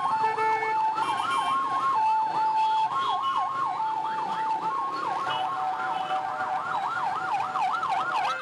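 Ambulance siren sounding a fast yelp, about four sweeps a second, over a steady note that switches between a higher and a lower pitch about once a second.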